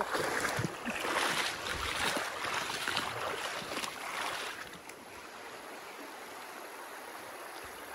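Steady rush of river water over a shallow riffle, with louder, uneven noise for the first few seconds that settles to a quieter, even flow about five seconds in.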